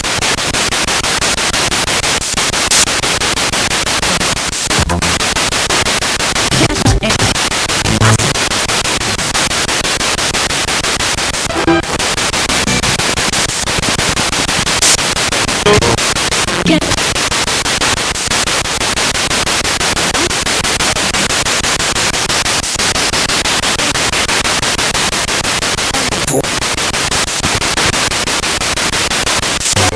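Spirit box radio sweeping through stations: loud, continuous static that cuts out briefly every few seconds, with short snatches of voice-like sound breaking through here and there.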